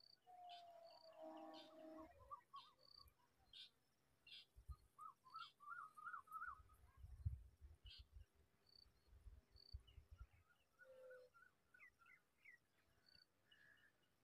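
Faint calls of a small songbird at its nest: runs of quick twittering notes, with short high chirps repeating throughout and a few soft low thumps in the middle.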